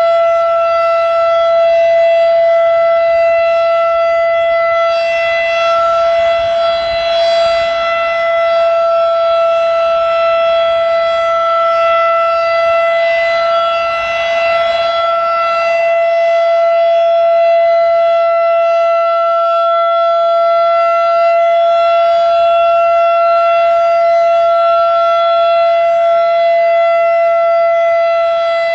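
Federal Signal Model 5 mechanical outdoor warning siren sounding a steady full-alert tone, loud, holding one pitch with a slight rise and fall in loudness. Wind rumbles on the microphone underneath.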